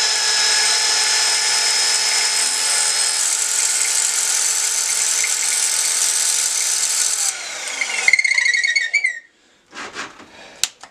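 A DeWalt drill spinning a metal rod as an improvised lathe while a small Milwaukee cordless rotary tool with a cut-off wheel is held against the rod, a steady high grinding whine. About seven seconds in the tools cut out and wind down, and a sharp click follows near the end.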